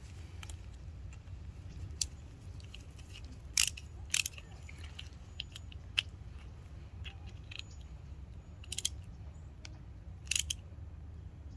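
Scattered sharp clicks and small scrapes of a screw-type hose clamp being fitted and tightened onto a propane hose, over a steady low rumble.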